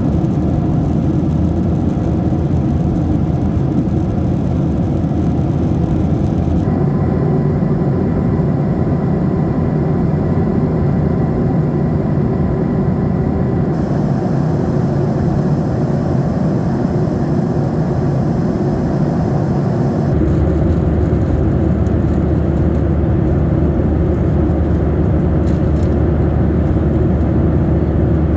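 Steady, loud cabin noise inside a Boeing 737-600 airliner: the hum of its CFM56-7B jet engines mixed with the rush of air along the fuselage. Its tone shifts abruptly three times, about a third, half and two-thirds of the way through.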